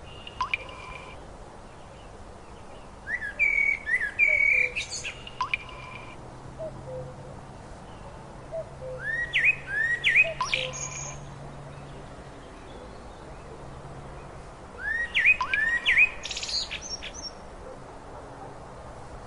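A songbird singing short phrases of quick rising chirps and trills, three phrases a few seconds apart, with quieter pauses between them.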